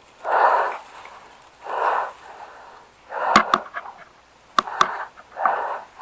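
A person breathing hard close to the microphone, in and out about every second and a half, with a few sharp clicks around the middle.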